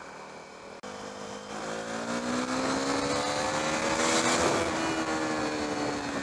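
KTM 390 Duke's 373 cc single-cylinder engine accelerating hard under open throttle. The engine note picks up about a second in and rises in pitch for about three seconds, then levels off, with wind noise building as speed rises.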